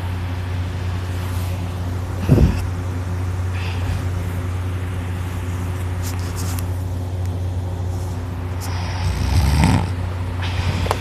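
Heavy snoring of a person passed out drunk on her back: one short loud snore about two seconds in and a longer one near the end, over a steady low hum.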